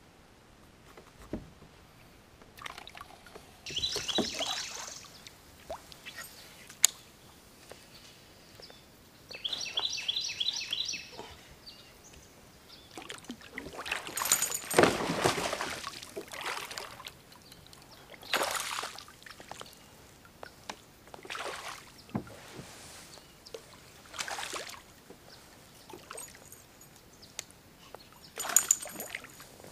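Water splashing and sloshing beside a kayak in separate bursts as a hooked bass is fought and brought to the surface, the loudest splashing about halfway through. Two short runs of rapid, evenly spaced high ticking come about four seconds in and again around ten seconds.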